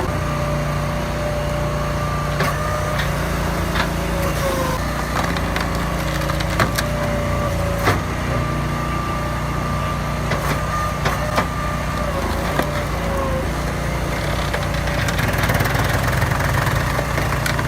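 Wood-processing machine running steadily with a low hum and a steady whine, with sharp knocks or cracks of wood every few seconds.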